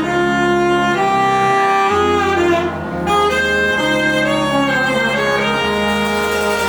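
A live band playing an instrumental piece: a melody of held notes moving from one pitch to the next over a steady bass line.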